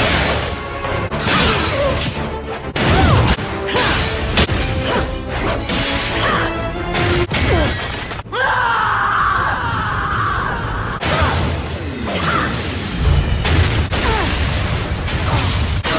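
A rapid string of short cartoon clips of a woman's fighting grunts, gasps and cries, over dramatic action-show music with crashes and metallic impacts. The clips cut abruptly every second or so.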